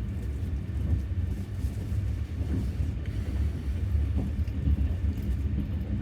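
Steady low rumble of a moving passenger train, heard from inside the sleeper carriage.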